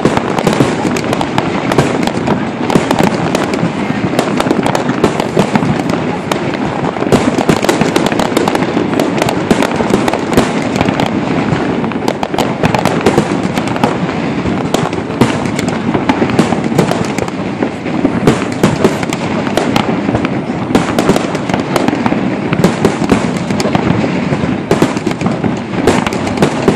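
Fireworks display: a dense, unbroken barrage of bangs and crackles, many every second.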